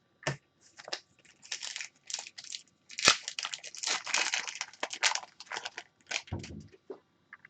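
Crinkling and crackling of plastic and foil trading-card packaging being handled, in a quick irregular run that is densest in the middle.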